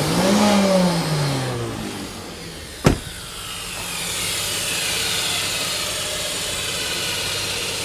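2006 Nissan Frontier's 4.0-litre V6 revved once, rising and falling back over about two seconds. A sharp click follows, then the engine runs steadily with a high whine, which the owner puts down to a failed torque converter.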